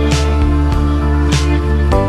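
Music with held chords over a steady beat.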